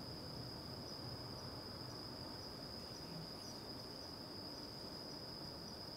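Crickets trilling in one steady, unbroken high note, faint over a low background hiss.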